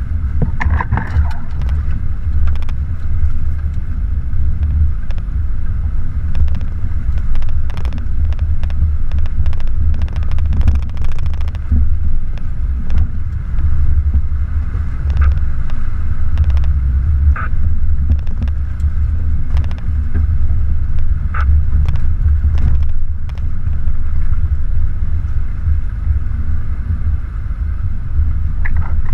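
Jeep Wrangler TJ driving slowly along a rough dirt trail: a steady low rumble of engine and drivetrain, with scattered clicks and knocks from the body and suspension over the ruts.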